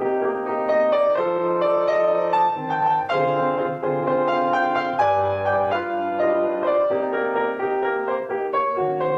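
Background piano music: a steady flow of notes with bass notes underneath.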